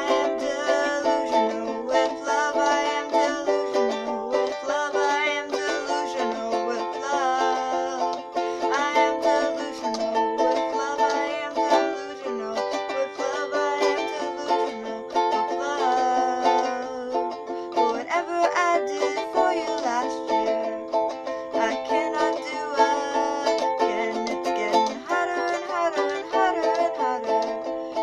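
Ukulele strummed in steady, rhythmic chords, with a voice singing along at times.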